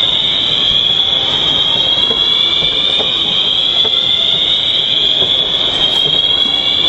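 Building fire alarm sounding: a loud, high-pitched continuous tone that slides slowly upward in pitch.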